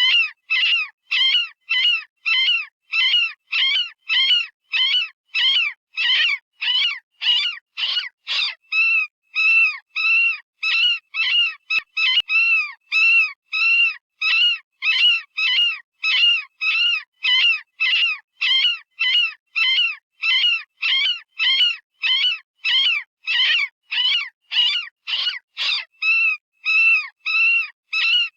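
Synthetic rabbit distress call from animal-sound software, the kind used as a predator call: short, high-pitched, scream-like squeals repeated about twice a second, each rising and falling in pitch.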